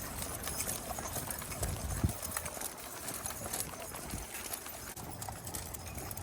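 Footsteps on a walk, irregular light steps and clicks, with a low thump about two seconds in.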